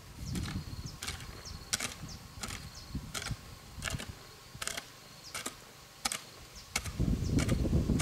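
A series of sharp knocks or chopping strokes, about one or two a second, with bursts of rustling near the start and again near the end, over a faint steady high tone.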